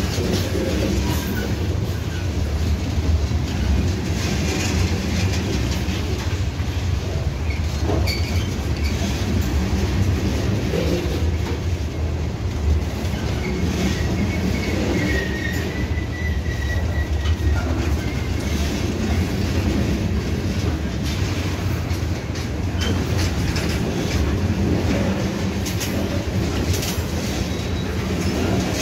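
Freight train of covered hopper cars rolling past at close range: a steady rumble of steel wheels on rail with clattering over the joints, and a thin high wheel squeal for a few seconds around the middle.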